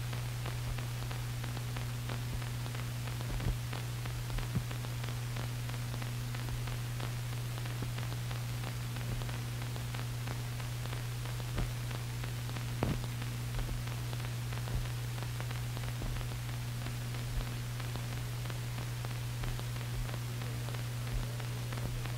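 Steady hiss and low hum of an old film soundtrack with no sync sound, with faint scattered clicks and pops.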